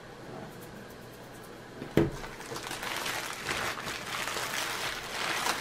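A single knock about two seconds in, then the crinkling and rustling of a plastic bubble mailer being handled.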